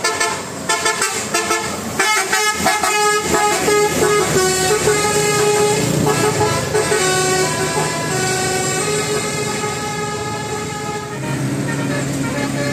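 Bus telolet horn, a set of musical multi-tone air horns, playing a melody: a run of quick short notes, then longer held notes.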